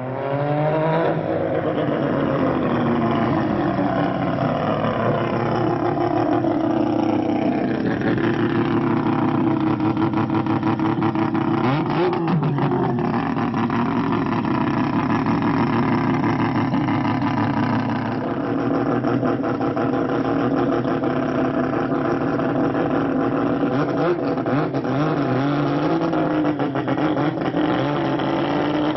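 Turbocharged three-rotor 20B rotary engine of a Mazda 6 SP drag car running at a steady idle. Its revs fall away at the start and are briefly blipped up and down about twelve seconds in.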